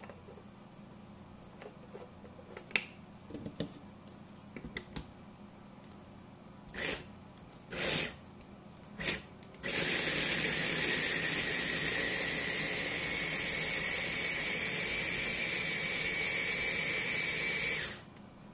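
Small electric food chopper: plastic clicks and knocks as the jar and motor head are fitted, three short pulses, then the motor runs steadily for about eight seconds, its whine rising slightly, grinding chopped vegetables into a wet paste before cutting off.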